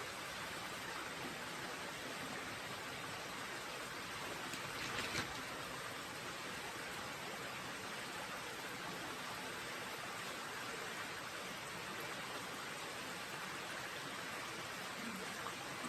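Creek water running over rocks, a steady rushing hiss, with one brief click about five seconds in.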